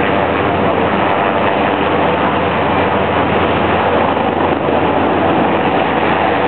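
Steady drone of a passenger boat's engines mixed with rushing water, heard on board while the boat is under way.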